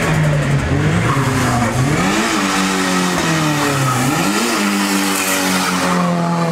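Car doing a burnout: the engine is held at high revs, its pitch swelling up and back down twice, about two and four seconds in, over the rush of the rear tyres spinning against the road.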